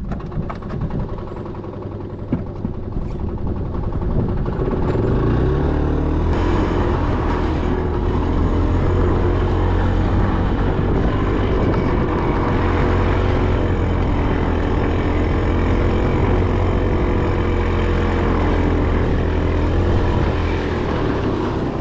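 An engine picks up speed about four to five seconds in, then runs steadily at one speed.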